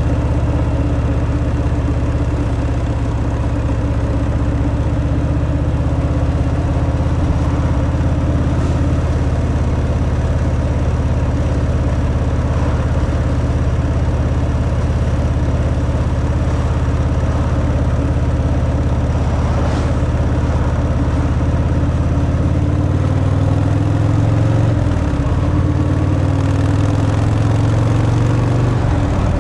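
Harley-Davidson Fat Boy's Milwaukee-Eight 114 V-twin running steadily through its stock exhaust while riding. The engine pitch dips and comes back up twice in the last few seconds.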